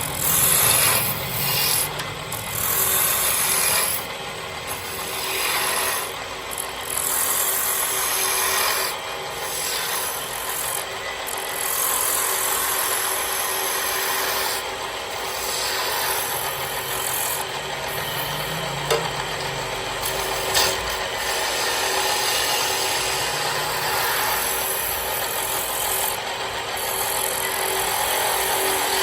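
Wood lathe running while a hand tool works the spinning wood: a continuous scraping hiss that swells and eases with each pass, over a constant motor hum.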